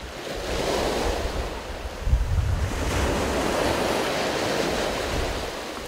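Sea waves washing on the shore, with wind buffeting the microphone in low rumbling gusts, the strongest about two seconds in.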